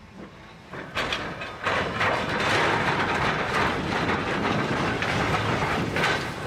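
A train passing close by: its noise comes in suddenly about a second in and stays loud.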